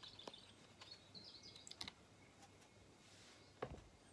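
Near silence with a few faint, light taps and clicks from a watercolour brush dabbing paint onto sketchbook paper.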